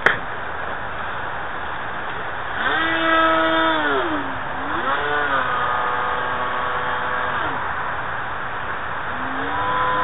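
Wind rushing on the microphone, then about two and a half seconds in the RC plane's Turnigy 2632 brushless outrunner motor and propeller come on as a whine. The pitch dips a little before four seconds in, climbs back and holds steady, drops away about seven and a half seconds in, and rises again near the end as the throttle is worked. This is power coming back on after a dead-stick glide.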